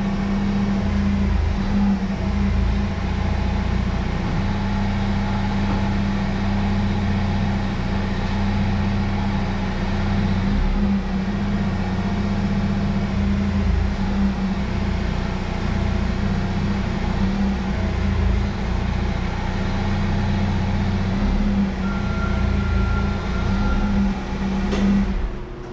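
Pickup truck engine running steadily with an even low hum, as the truck is driven.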